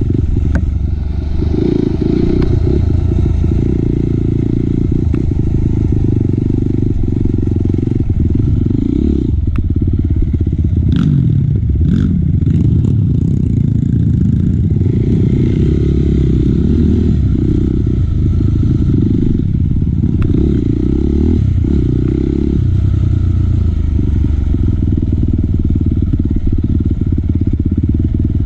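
Four-stroke single-cylinder dirt bike engine running on a rough trail, its note rising and falling with the throttle. The bike clatters over the ground, with a few sharp knocks about halfway through.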